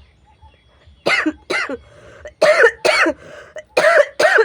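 A person coughing hard and on purpose, six sharp voiced coughs in three quick pairs, each cough dropping in pitch.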